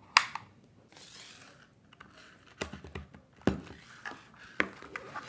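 Scattered clicks and knocks from a Portronics wireless mechanical keyboard being pressed and handled, some with a dull thud, and a short scraping rustle about a second in.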